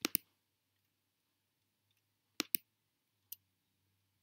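Computer mouse clicks: a pair at the start, another pair about two and a half seconds in, and a single click a little later, with a faint low hum between them.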